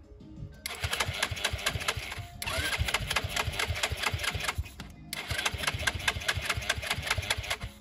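150cc go-kart engine cranking on its electric starter in fast, even pulses, with a short break about five seconds in. It turns over without catching, which the crew puts down to no fuel reaching the engine.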